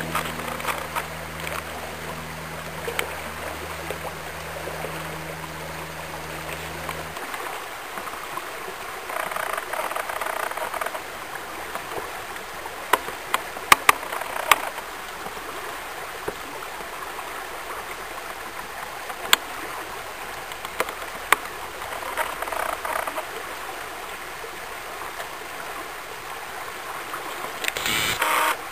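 Shallow creek water running over stones, a steady rushing. A low steady hum under it cuts off about seven seconds in, and a few sharp clicks come in the middle.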